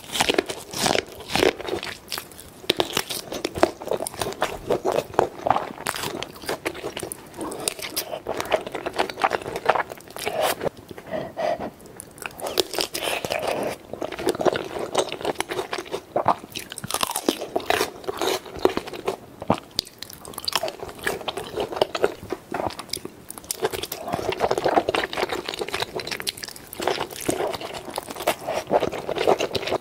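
Close-miked eating: crunchy bites and chewing throughout. Kernels are bitten off corn on the cob at first, then sausage and crab or shrimp meat from a seafood boil are chewed, with wet, saucy mouth sounds.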